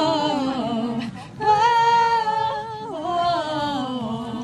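Female voices singing together unaccompanied, in three long held phrases.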